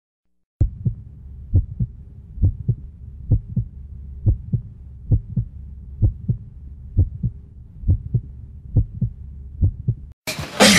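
A slow heartbeat sound effect: paired low lub-dub thumps about once a second over a low rumble. Near the end it stops, and a loud roar cuts in.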